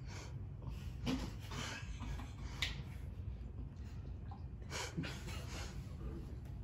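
Stifled laughter: a few short, breathy snorts and puffs of air forced through noses and covered mouths, over a low steady room hum.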